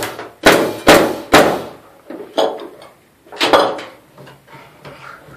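Nail gun firing nails into a curved OSB ceiling arch: three sharp shots in quick succession, then two fainter shots about a second apart.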